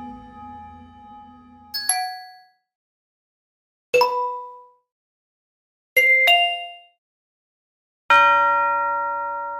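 A series of separate bell sounds, each struck and left to ring out: a ringing tone dying away, short dings about 2 and 4 seconds in, a quick two-note ding near 6 seconds, and a fuller bell about 8 seconds in that keeps ringing.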